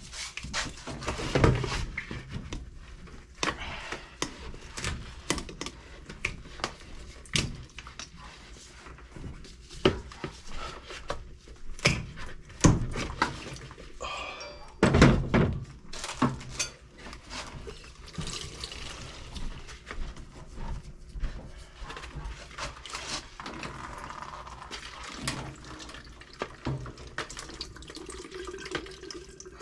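Irregular clicks, knocks and clatter of plumbing parts and tools being handled, with a few heavier thuds, about a second and a half in, twice near the middle.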